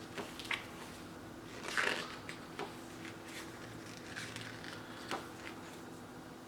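Paper handling: the pages of a glossy photo booklet being turned and shifted, with light clicks and rustles and one louder rustle about two seconds in, over a faint steady hum.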